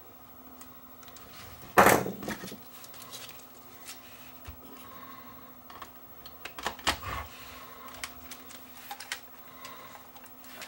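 Plastic camcorder cabinet panels being handled and pressed into place: one sharp knock about two seconds in, then a scatter of smaller clicks and taps, with a cluster a little past the middle.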